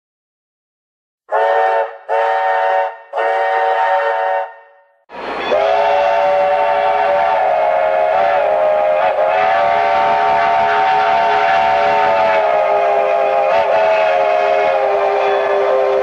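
Chime steam whistle of Union Pacific 0-6-0 switcher No. 4466, sounding a chord of several tones at once: three short blasts starting about a second in, then after a short pause one long blast held steady, wavering slightly in pitch twice.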